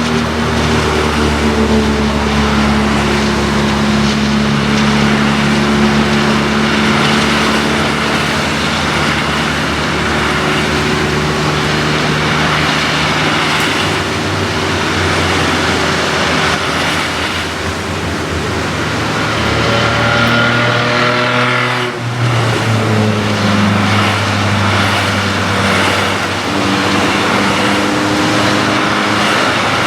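Citroën C1 race car's small three-cylinder engine running hard under load at a fairly steady pitch, climbing in pitch about twenty seconds in and dropping sharply at about twenty-two seconds as it shifts gear.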